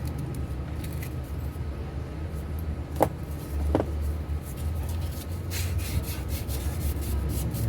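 Fine sandpaper rubbing back and forth on a wall fan's motor shaft, a run of repeated scraping strokes that clean off stuck-on grime where the shaft had seized in its bushing. Two sharp clicks come about three seconds in, over a steady low hum.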